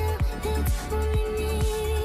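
Background electronic dance music with a steady deep beat, about two bass hits a second, under a sustained synth tone.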